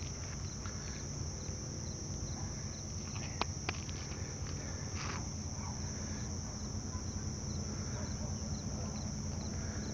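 Insects chirring in a steady high-pitched chorus over a low steady rumble, with a couple of sharp clicks about three and a half seconds in.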